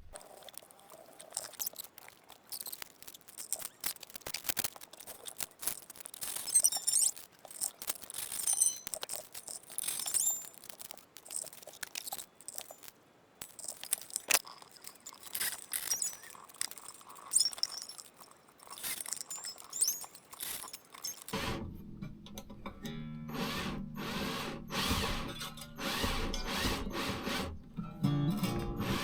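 Acoustic guitar being restrung by hand: scattered clicks, ticks and scrapes of strings and pegs being handled. About two-thirds of the way through, low sustained notes come in and step in pitch.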